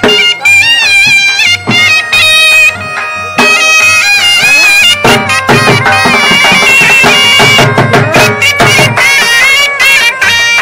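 Loud Saraiki folk dance music: a reedy wind instrument plays a wavering, ornamented melody over steady drone tones, punctuated by occasional drum strokes.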